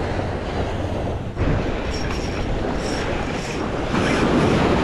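Wind rushing over the microphone above the surf washing onto a sandy beach, with a wave surging in louder near the end.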